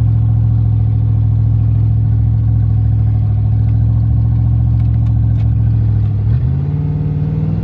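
Ford Mustang GT's V8 engine running loud and steady under throttle. About six and a half seconds in, its pitch steps up as the revs rise.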